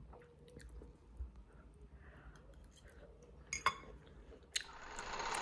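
Quiet chewing of a mouthful of cheesy loaded fries, with a few faint clicks of a fork on the plate. Near the end a steady whirring noise swells in.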